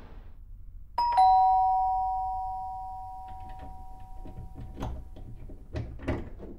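Doorbell chime sounding a two-note ding-dong, a higher note then a lower one, about a second in, ringing and slowly fading over about four seconds. A few soft thuds and clicks follow near the end.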